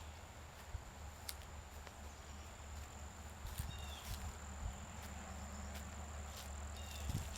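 Insects trilling in a steady, high, even tone, with a short chirp twice and a few soft clicks over a low rumble.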